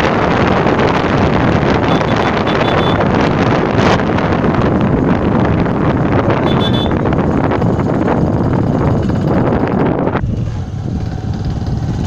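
Wind buffeting a phone's microphone on a moving motorcycle, with the motorcycle running underneath. The rush of wind drops off about ten seconds in.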